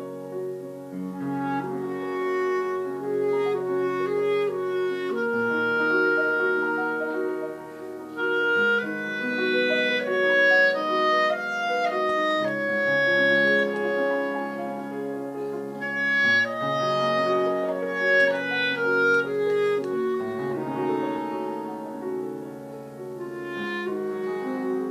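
A grand piano played live together with a second melody instrument that holds long, sustained notes over the piano's chords.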